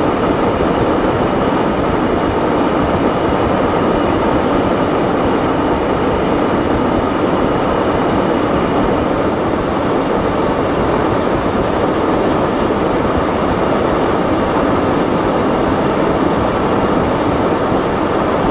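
A steady, loud rushing noise with no breaks or distinct events.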